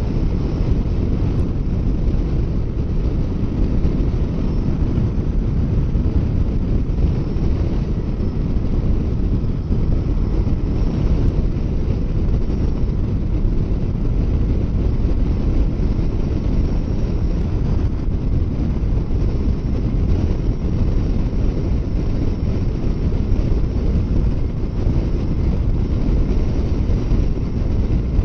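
Steady wind rushing over the microphone of a motorcycle at highway speed, with the bike's running and road noise under it.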